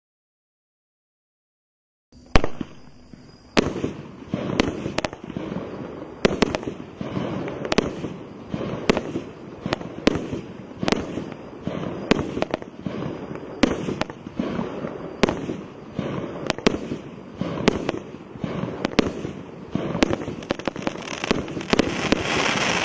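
Cosmic Fireworks 'God of Thunder' 20-shot firework cake firing, starting about two seconds in: a steady string of sharp bangs, roughly one a second, with crackling between them. The crackle thickens near the end.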